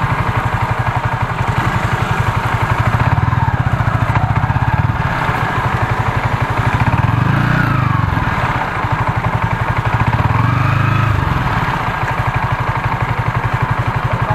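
Motorcycle engine running at low speed, heard close up, with a steady rapid pulse. The revs rise and fall twice around the middle and settle back to a low, even beat near the end.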